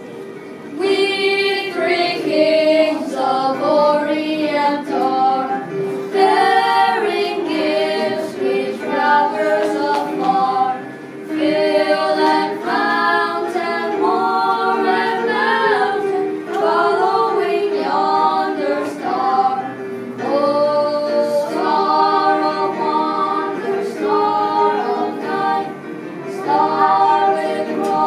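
Children singing a song together.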